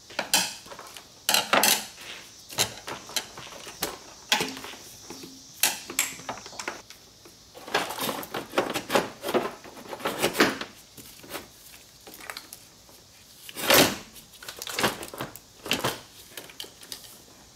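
Irregular clicks, knocks and rattles of plastic and metal parts being handled as the intake inlet tube is worked loose in a car's engine bay. The knocks come thickest about halfway through, and the loudest single knock falls a few seconds before the end.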